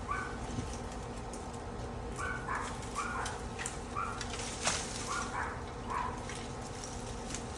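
Short, high-pitched animal calls repeated at irregular intervals, about ten of them, over a steady low background rumble, with one sharp click a little under five seconds in.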